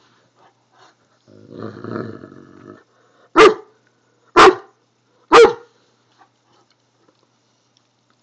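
A Newfoundland dog gives a low growling grumble, then three loud, sharp barks about a second apart, demanding attention and petting.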